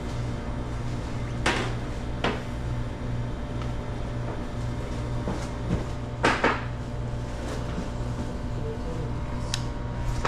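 Steady low machine hum with a few sharp knocks and clunks: one about a second and a half in, another shortly after, a louder double clunk about six seconds in, and a short sharp click near the end.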